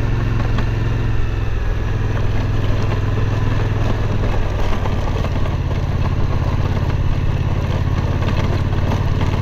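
Suzuki V-Strom 1050's V-twin engine running at a steady pitch while riding a rocky dirt road, with a constant rushing noise over it.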